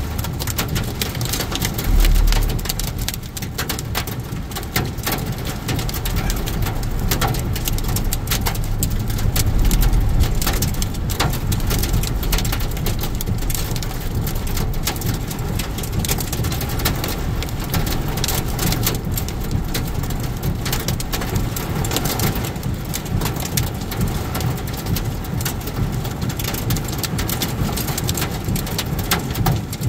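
Heavy rain pelting the windshield and roof of a moving car, heard from inside the cabin as a dense, steady patter of drop impacts. A deep rumble swells about two seconds in and again about ten seconds in.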